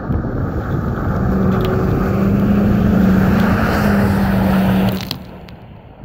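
Pickup truck driving past across an icy, slushy lot: a steady engine hum over rushing tyre noise on slush that swells, then drops off suddenly about five seconds in.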